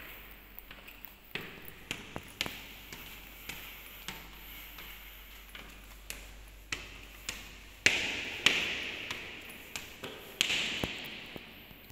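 Footsteps climbing tiled stairs, sharp taps about every half second, each ringing on in the echo of an empty, hard-walled room. A few steps about two-thirds of the way through and near the end are the loudest.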